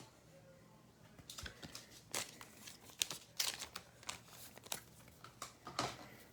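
Trading cards and their plastic packaging being handled: irregular crinkling and rustling that starts about a second in.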